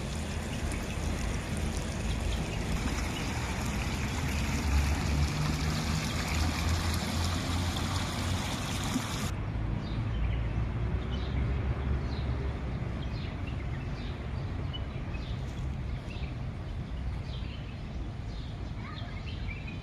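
Water running and trickling in a shallow garden stream channel, a steady hiss that cuts off abruptly about halfway through. After that, a quieter open-air background with faint short high chirps, with a low rumble underneath.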